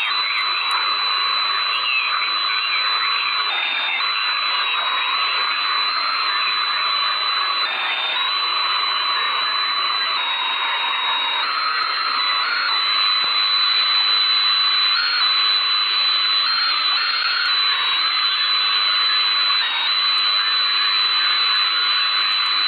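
Radio receiver static: a steady hiss with a thin, high whistle on top that steps slightly up and down in pitch now and then.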